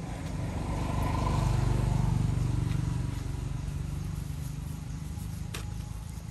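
A motor vehicle's engine rumble swelling and then fading, as it drives past.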